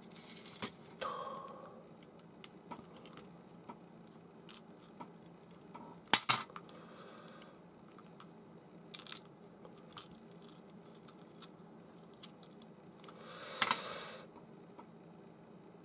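Small metal clicks and taps of a screwdriver and parts on a baitcasting reel while its screws are tightened, scattered and irregular with a sharper click about six seconds in. A short rustle comes near the end.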